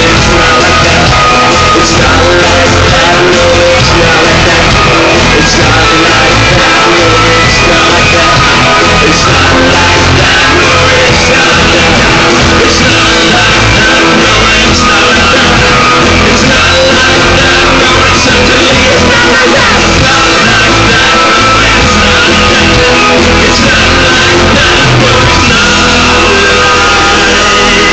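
Rock band playing live, with a singer's voice over guitars and drums. It is loud and unbroken throughout.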